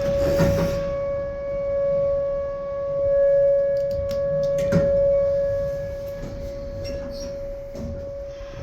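Outdoor tornado warning siren sounding one steady tone during its weekly test, swelling and fading in loudness.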